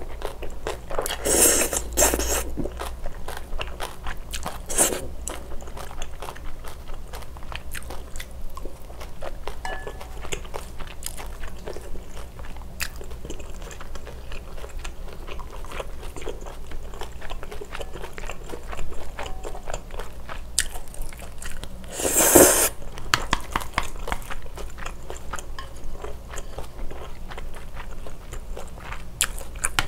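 Close-miked eating of spicy yeolmu bibim noodles and pork galbi: steady chewing with many small wet clicks, broken by louder noodle slurps a couple of seconds in, again about five seconds in, and once more about two-thirds of the way through.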